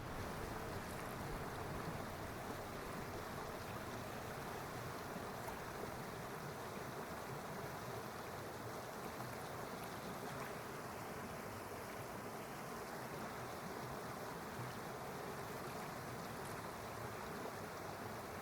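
A steady rush of flowing water, even and unbroken.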